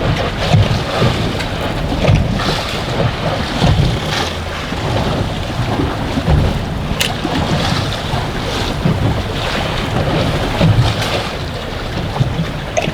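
Wind buffeting the microphone over waves slapping around a small fishing boat, a steady rushing noise heavy in the low end, with a few brief sharp knocks.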